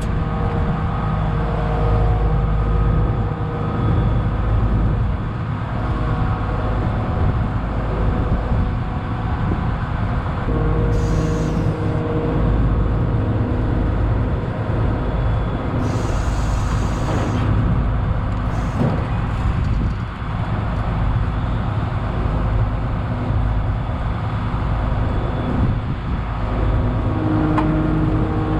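Case IH 1660 combine's diesel engine running steadily, its pitch shifting now and then, with a few short hisses.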